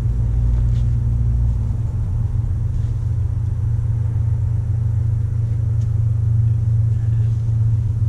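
A steady low rumble, with a few faint ticks over it.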